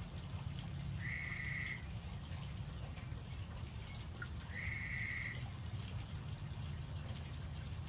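An animal call: a flat, even, high note lasting just under a second, heard twice about three and a half seconds apart, over a steady low hum and a few faint ticks.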